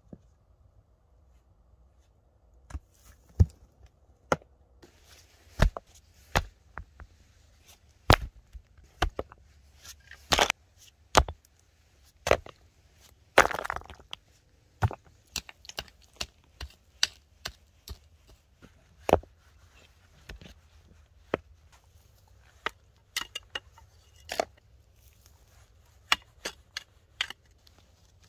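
Stones knocking and clacking against one another as they are picked up, set down and stacked: sharp, irregular knocks, with one longer, louder crunch about halfway through.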